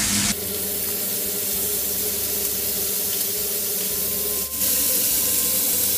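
Steak pieces sizzling steadily in oil and butter in a frying pan, a continuous hiss, as they are turned over with tongs.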